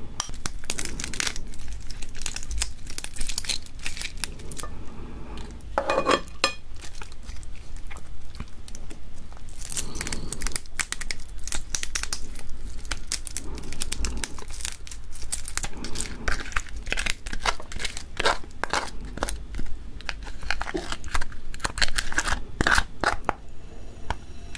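Raw soy-sauce-marinated flower crab (ganjang gejang) being pulled apart by hand: its shell and legs cracking and tearing in dense runs of short crackles and snaps, with wet, squishing flesh.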